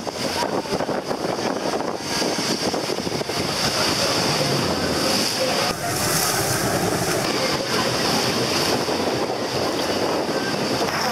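Moving river cruise boat: a steady rush of water and wind noise on the microphone.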